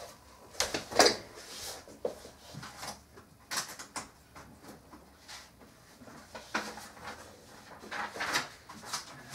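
Handling noises as someone rummages: scattered rustles, clicks and knocks, the loudest a knock about a second in.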